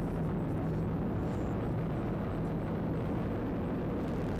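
Falcon 9 rocket's nine first-stage Merlin engines climbing shortly after liftoff, heard from the ground as a steady low rumble.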